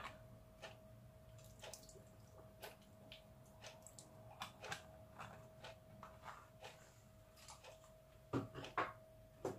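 Lemon juice shaken from a small plastic bottle, dripping onto raw chicken pieces in a steel bowl as faint, irregular ticks about once a second. A few louder knocks come near the end, over a faint steady hum.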